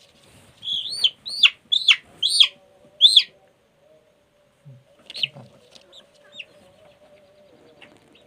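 Chickens calling: five loud, high-pitched calls in quick succession that each rise briefly and then fall steeply, followed a couple of seconds later by a few fainter calls.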